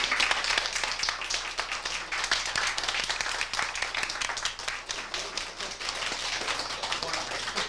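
A group of people applauding: steady, dense hand clapping.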